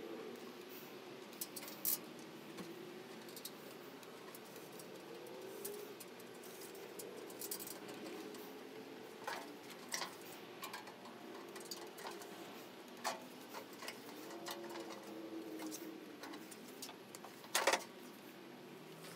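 Scattered light clicks and metal knocks of cart parts being handled and fitted together during assembly, with a sharper knock about two seconds in and the loudest near the end.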